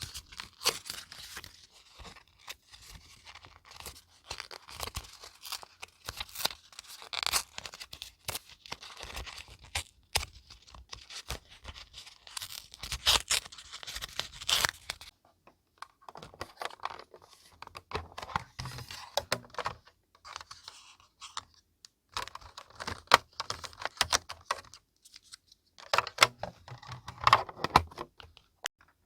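Paper being handled and torn close up: dry, crackling rustles in stop-start runs, with short pauses about halfway through and again near the end.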